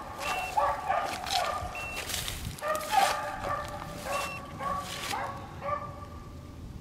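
Beagles baying while running a rabbit: several hounds' long voices overlap, thinning out and going quieter about five seconds in.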